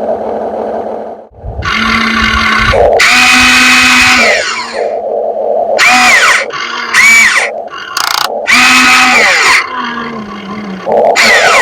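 RC excavator's electric motors whining in repeated bursts of a second or so as the machine moves, the pitch dropping away at the end of several bursts.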